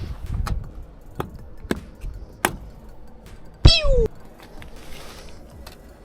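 A few sharp metal clinks and knocks, then a short, loud squeal that falls in pitch, as tools work at a stuck oil filter.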